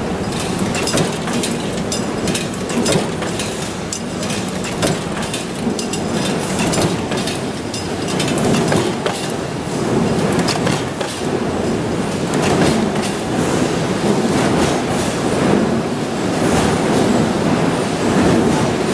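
Concealed-hinge production machinery running: a continuous mechanical din packed with frequent sharp metallic clicks and clacks.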